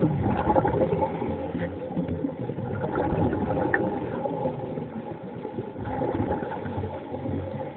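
Muffled underwater noise heard through a submerged camera: a steady hum with a dense crackle and rush of water.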